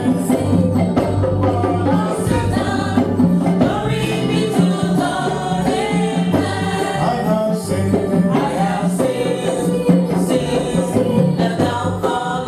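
Congregation singing a gospel song with bass and percussion, in a steady rhythm.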